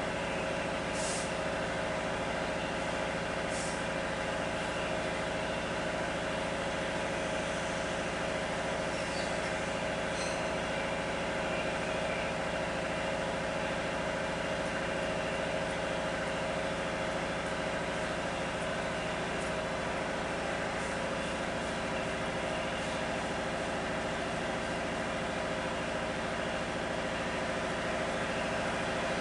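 A steady mechanical hum with several constant tones and no change in pitch, with a few faint light ticks in the first third.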